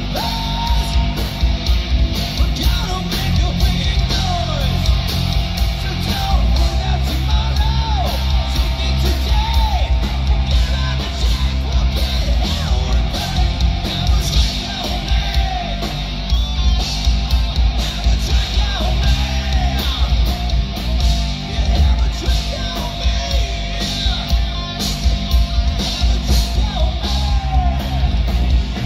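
Live rock band playing a song: drums struck throughout, electric guitars, and a singer.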